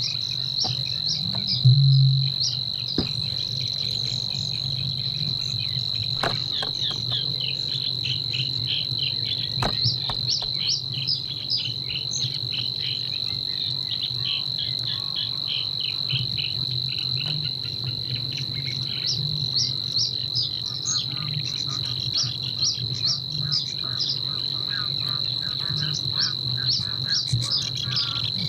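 Eurasian bittern giving one deep, low boom about two seconds in, over a continuous high, insect-like reeling trill. Low croaking and scattered quick chattering bird notes run through the rest.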